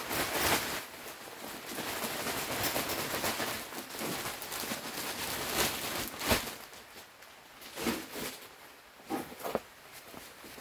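Soil pouring out of a 40-litre plastic bag onto a raised bed: a steady rustling hiss of falling soil for about six seconds. The pour then ends with a sharp knock and a few softer rustles of the bag.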